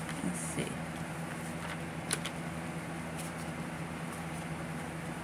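Paper banknotes being shuffled by hand, a few soft rustles and clicks of the bills, over a steady low hum.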